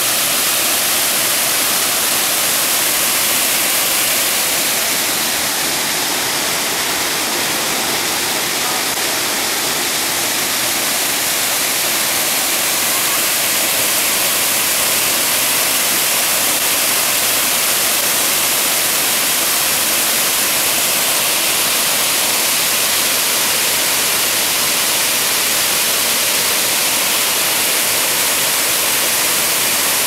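A broad waterfall pouring over a rock ledge into its pool: a steady, loud rush of falling water with a strong hiss.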